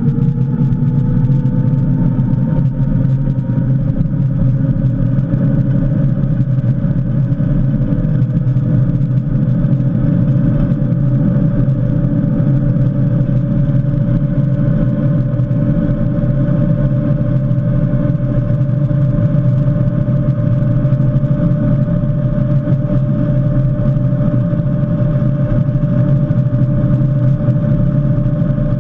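Electric motorbike's Cromotor hub motor whining at speed, the whine climbing in pitch over the first several seconds and then holding steady near its 100 km/h top speed. Heavy wind and road rush run under it throughout.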